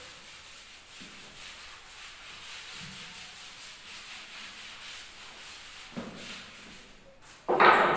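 Blackboard being wiped with a chalk duster, a steady scrubbing hiss that swells and fades with each back-and-forth stroke. A loud sudden knock near the end.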